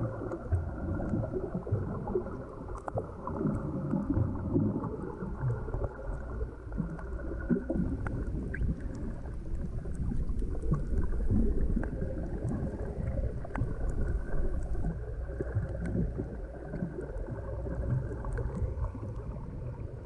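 Muffled rushing and sloshing of water picked up by a camera held underwater, with faint scattered clicks over it.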